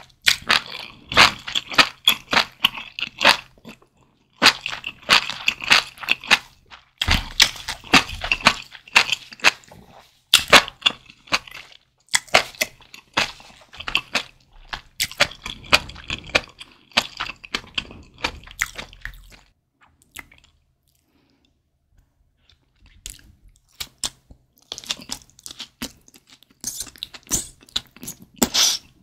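Close-miked mouth sounds of a person eating malatang: wet chewing and biting with many sharp clicks, in runs of a few seconds each, with a near-quiet pause of about three seconds roughly two-thirds of the way through.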